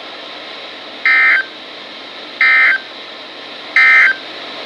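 NOAA Weather Radio SAME end-of-message data bursts: three short, raspy digital-tone bursts about a second and a half apart, signalling the end of the warning broadcast.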